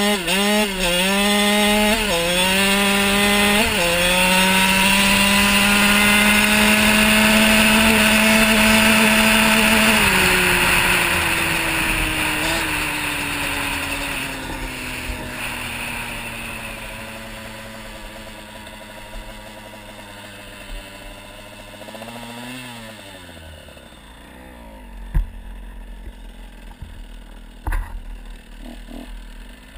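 KTM 85 SX two-stroke single-cylinder engine accelerating hard with several quick upshifts, then held at high revs. About ten seconds in the throttle closes and the revs fall slowly as the bike coasts; a short blip of throttle follows and the engine settles to a low burble, with a couple of sharp thumps near the end.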